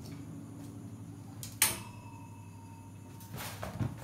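Cats knocking about among household objects: one sharp knock about one and a half seconds in that rings on briefly like metal. Near the end comes a rattle of light clatters as a cat steps onto a metal wire rack on the floor.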